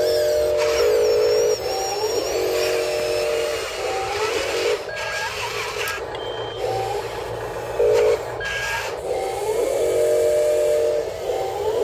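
Electric gear motors of a toy RC excavator whining in on-off runs of one to two seconds, some starting with a short rising pitch, as the boom, arm and bucket move.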